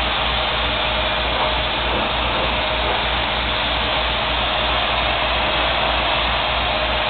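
Steady, unbroken rush of compressed air from car-spraying equipment, with a low hum underneath.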